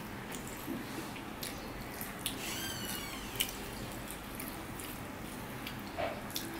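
Soft eating sounds: two people chewing and mixing rice and curry with their fingers, heard as scattered wet clicks and smacks. A brief high squeak that falls then rises in pitch comes a little before halfway.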